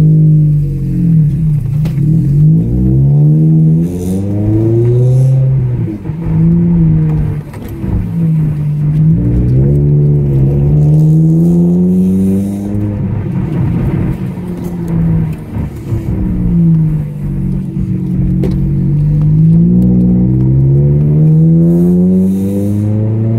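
Ford Focus ST170's four-cylinder engine, decatted and breathing through an RS Mongoose exhaust and a Pipercross Viper intake, heard from inside the cabin while driving. The engine note climbs and drops again and again as the car accelerates and eases off through the gears.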